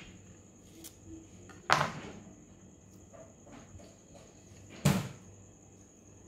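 Kitchen handling noises from a knife and avocado slices on a countertop: two sharp knocks about three seconds apart, with faint small clicks and rustles between.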